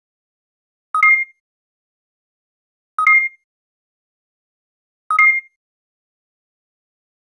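Short electronic blip of two notes together, a slideshow transition sound effect. It repeats three times about two seconds apart, with silence between.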